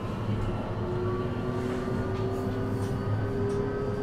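JR West 321 series electric train running, its Toshiba IGBT inverter and traction motors giving a whine that climbs slowly in pitch as the train gains speed, over a steady running rumble.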